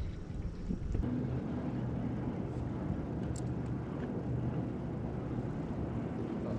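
Steady low motor hum with a faint pitched drone, and a brief light click about three seconds in.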